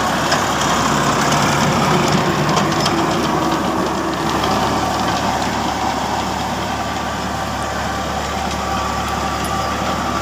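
An engine running steadily at an even speed, a continuous low hum that changes slightly about four seconds in.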